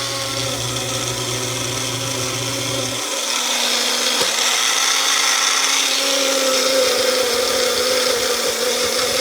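Bullet-style personal blender's motor running continuously on a thick frozen pineapple and ice-cream mix, a loud steady whir that grows a little louder about three seconds in. The blades are spinning but not blending the mix.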